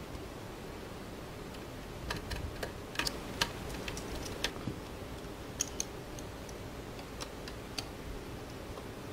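Irregular light clicks and taps of small metal mounting brackets and bracket screws being handled and fitted onto a dome camera's mounting ring, most of them from about two seconds in, over a steady low hiss.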